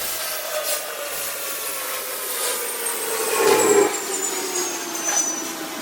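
Power tool motor whining and slowly dropping in pitch, with scattered clicks and a louder scraping stretch about three and a half seconds in.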